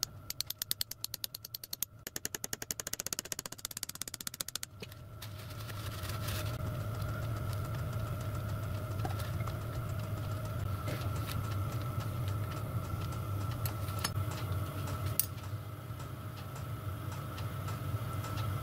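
A ratchet spanner clicking rapidly, about ten clicks a second, for the first five seconds. Then a steady low hum with a faint whistle, typical of a garage diesel heater running, with a few light knocks of metal parts.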